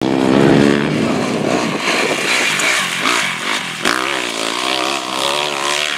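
Motocross bike engine revving as the bike rides through a turn, its pitch rising and falling with the throttle, loudest in the first second. A short sharp click about four seconds in.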